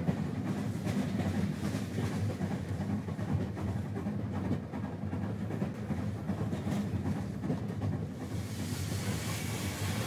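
Model train running along the layout's track: a steady low rumble with fine rapid rail clicks. A hiss rises in near the end.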